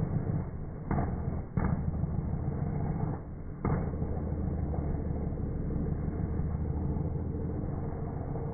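The flat-six of a stock 2015 Porsche 981 Cayman GTS with the Porsche Sports Exhaust, running at a steady pitch with the car standing still. A few brief knocks come in the first four seconds.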